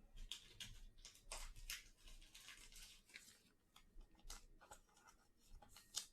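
Faint rustling and light clicks of trading cards being flipped through and handled by hand, a dozen or so small, irregular sounds.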